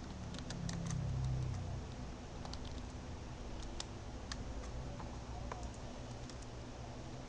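Computer keyboard typing: scattered, irregular key clicks over a steady low hum, which swells louder for about a second near the start.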